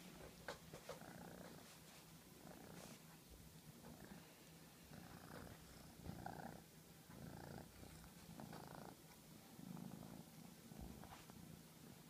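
Domestic cat purring faintly close to the microphone, a steady low purr that swells and eases in a regular rhythm, with a few soft clicks.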